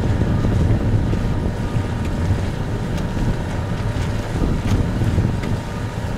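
Wind buffeting the microphone on a moving boat: a steady, rumbling rush.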